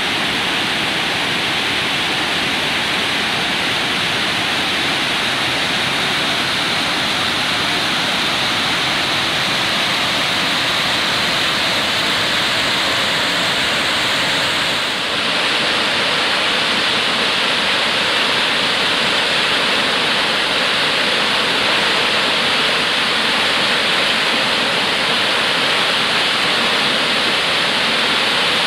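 Waterfall: a steady, even rush of water cascading over rocks, with a brief dip and slight change in tone about halfway through.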